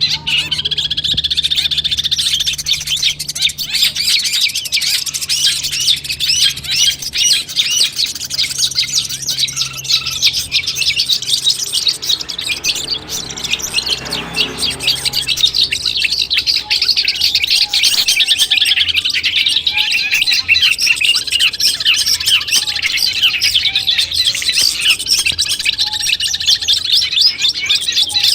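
Long-tailed shrike (cendet) singing a fast, unbroken stream of high chirps and trills.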